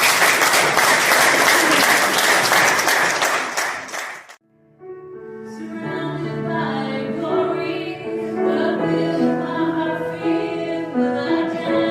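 A congregation applauding, which cuts off abruptly about four seconds in. After a brief silence, voices begin singing a slow worship song with long held notes.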